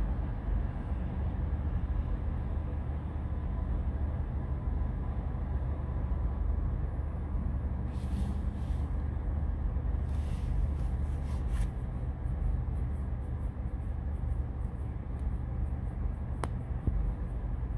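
Steady low rumble of city street traffic, with a few brief hissing sounds and a single sharp click near the end.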